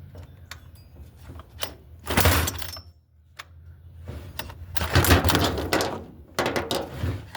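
Chainsaw being pull-started, its recoil starter rope yanked in hard, noisy pulls: a short pull about two seconds in, a longer run of pulling noise after a brief pause, and more pulls near the end.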